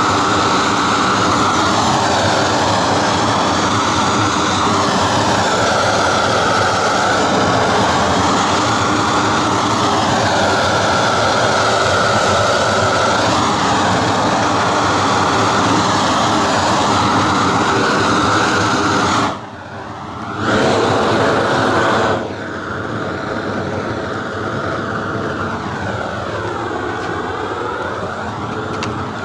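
Propane roofing torch burning steadily, its flame heating roofing tar on metal counter flashing. The flame drops out for about a second near two-thirds of the way through, comes back, then runs quieter for the rest.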